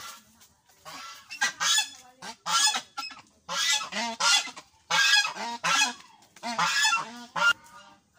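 Tokay gecko calling: a series of loud, pitched calls, some in close pairs, coming about once a second.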